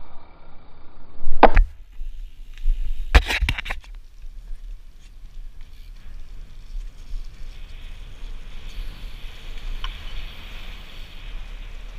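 Wind rumbling on a helmet-mounted action camera while riding a BMX bike, with sharp knocks from the bike about a second and a half in and a quick cluster of them about three seconds in, then a steady rolling hiss of tyres on wet tarmac.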